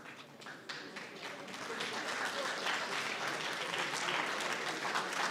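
Audience applauding, swelling to full applause after about a second and a half.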